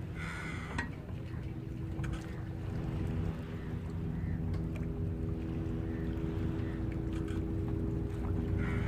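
A boat engine running steadily at low revs, a low drone that grows a little louder toward the end. Brief higher-pitched sounds come right at the start and again at the very end.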